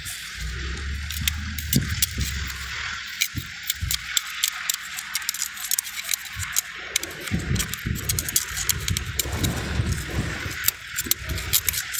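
Scattered small metallic clinks and rattles of hand work on a wheel loader's transmission parts, with irregular low rumbles and a brief steady low hum in the first few seconds.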